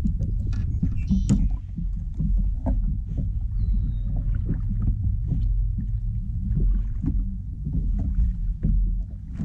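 Bass boat on the water: a steady low rumble with scattered knocks and thumps as a largemouth bass is handled on the front deck.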